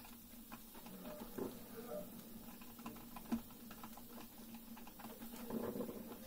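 Mr. Coffee drip coffeemaker brewing: faint, irregular small pops and ticks as hot water sputters through, over a low steady hum.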